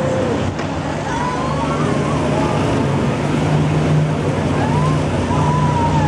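Swinging ship ride in full swing: a steady low hum and rushing noise as the ship sweeps back and forth, with riders letting out long, wavering yells, one about a second in and another near the end.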